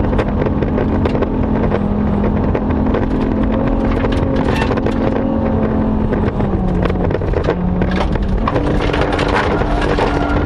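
Rally car engine running hard on a gravel special stage, heard inside the cabin, with gravel clattering against the car. The engine note holds steady, dips about seven seconds in, then rises sharply about a second later.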